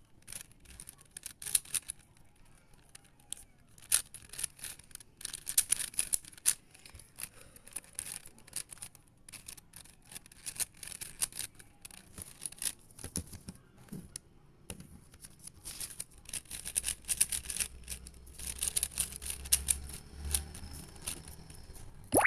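A plastic puzzle cube being turned by hand: rapid runs of clicking and scraping as the layers are twisted, with brief pauses between runs.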